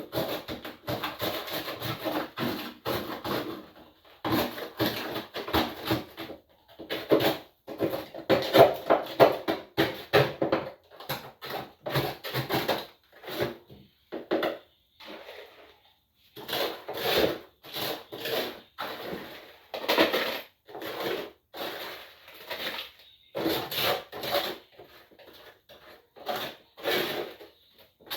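Containers and packets being taken out of a refrigerator and set down: irregular knocks, clatter and rustling, with short pauses about six, eleven and fifteen seconds in.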